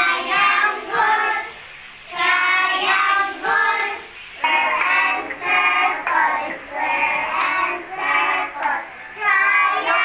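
Children singing a song, in phrases of about a second with short breaks between.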